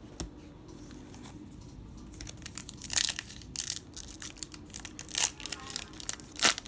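Foil card booster pack wrapper being crinkled and torn open in irregular crisp bursts, starting about two seconds in.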